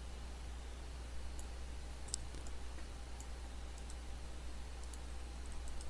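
A few scattered faint clicks of a computer mouse over a steady low hum, the sharpest about two seconds in.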